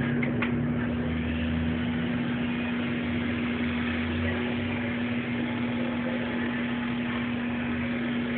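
Corded electric hair clippers buzzing with a steady hum as they cut a young child's hair.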